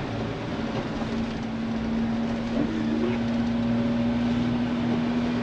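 Jeep driving at a steady speed through snow: a steady engine drone with road and wind noise.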